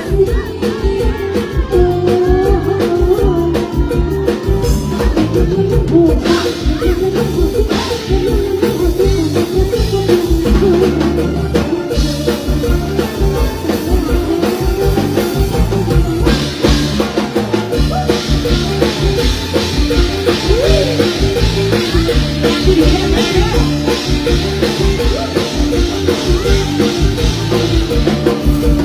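Live mor lam band music with a steady drum-kit beat and bass, played loud and without a break.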